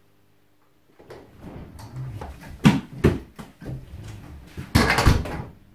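A person coming in through a workshop door: near silence for about a second, then footsteps and handling noises, with two sharp knocks around the third second and a loud burst of noise about five seconds in.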